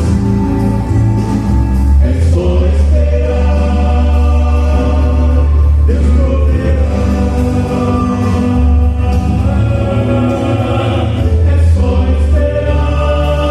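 Gospel hymn sung in close vocal harmony by a quartet over a steady musical backing, with sustained, held chords.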